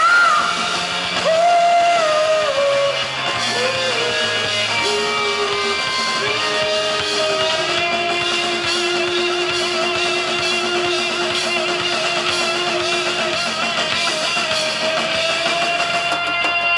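Heavy metal band playing live through a PA: electric guitars, bass and drums, with long held notes that slide between pitches, one note held steady for about five seconds midway.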